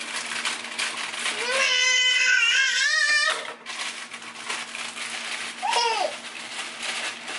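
A toddler's voice: a high-pitched, wavering babble held for about two seconds, then a short rising-and-falling call near the end. Underneath runs a steady rushing noise with small clicks and clatter, the sound of potatoes being washed at the sink.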